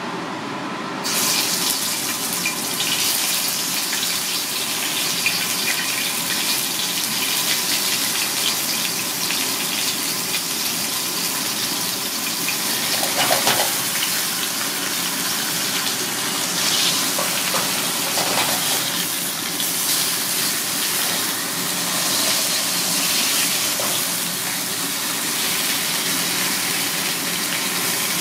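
Fish pieces sizzling in hot oil in a wok, a steady dense hiss that sets in abruptly about a second in.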